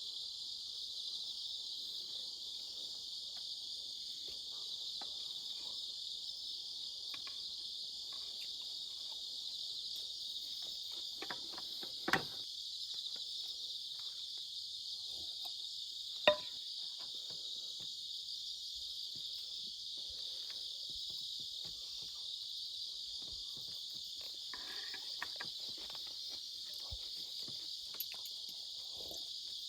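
Steady, unbroken chorus of crickets chirring, with two sharp knocks about twelve and sixteen seconds in.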